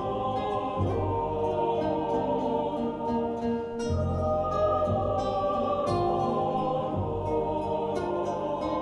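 Mixed chamber choir singing sustained chords, accompanied by an acoustic guitar and a double bass whose low notes come in every few seconds.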